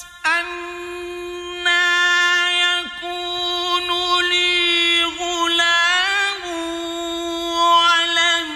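Male Qur'an reciter's voice in melodic mujawwad (tajweed) recitation, drawing out long held notes on a mostly steady pitch, with brief breaks and a rising, wavering ornament about five to six seconds in.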